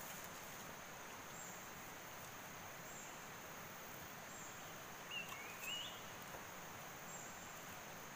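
Forest insects, crickets, make a steady high-pitched chorus that swells faintly about every one and a half seconds. A short wavering chirp comes about five seconds in.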